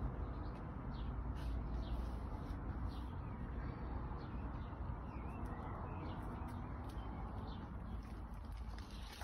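Small garden birds chirping, with short high calls coming every second or so, over a steady low background rumble.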